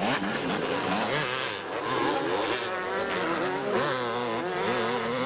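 Two-stroke motocross bike engines revving hard, their pitch rising and falling with the throttle as the bikes race through a dirt turn and up a rise, with several engine notes overlapping.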